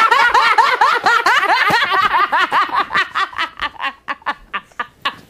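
A man laughing hard in a fast run of ha-ha sounds, trailing off into short, breathy gasps of laughter near the end.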